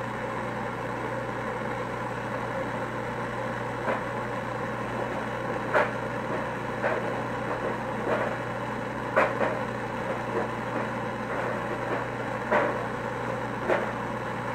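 Handheld gas torch burning, its flame hissing steadily, with short sharp clicks every second or two.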